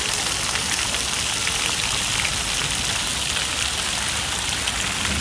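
Steady patter and hiss of falling water, many small drops striking a surface.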